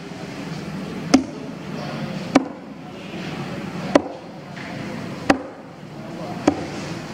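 Large curved knife chopping through giant trevally fillets into a wooden chopping block: five sharp chops, about one every 1.3 seconds, over steady background noise.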